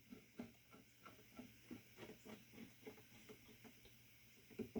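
Faint, irregular small ticks and clicks of a screw being turned partway into the Scythe Mugen 5 cooler's AM4 mounting bracket, left loose for now.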